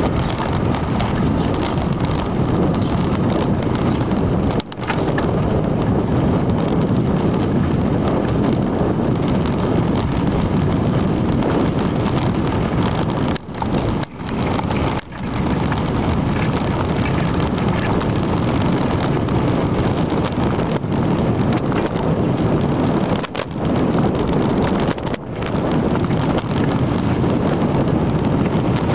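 Wind rushing over the microphone of a camera on a moving bicycle, a steady, loud low rumble that dips briefly a few times.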